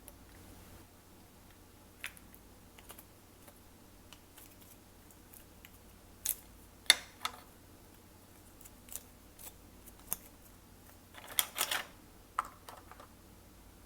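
Glossy slime being handled: scattered sharp clicks and small crackles, with a quick run of them about 11 seconds in.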